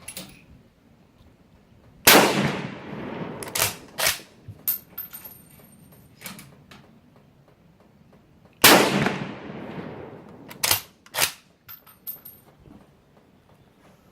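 Two rifle shots about six and a half seconds apart, each with a long echoing tail. About a second and a half after each shot come a few sharp metallic clacks and a brief high ringing clink.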